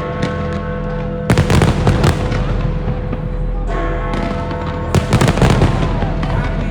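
Fireworks bursting in two rapid volleys of bangs and crackles, about a second in and again near the end, over music with long held notes.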